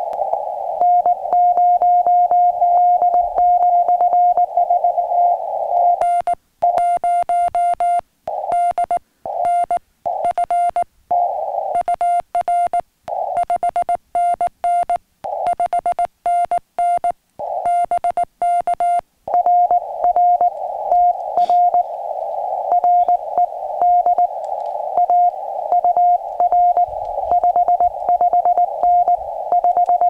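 Morse code (CW) contact on a ham radio transceiver: a single tone of about 700 Hz keyed on and off in dits and dahs. Part of it is the sidetone of the operator's own sending on a homebrew pressure paddle, heard clean. Part is the other station's reply, with a hiss of band noise around the tone.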